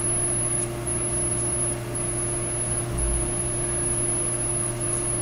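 Steady background hum from a machine or appliance, with a faint high whine over an even hiss, and a soft low bump about three seconds in.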